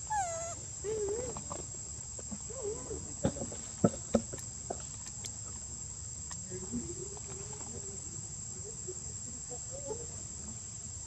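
Steady, high-pitched insect drone throughout. A call falls in pitch right at the start, a few faint wavering calls come later, and a few sharp clicks fall about three to four seconds in.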